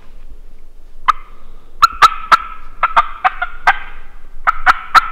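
Wild turkeys gobbling in the woods: loud, sharp runs of gobble notes, the first starting about a second in, a second run near the end. The hunters take the birds to be angry at each other.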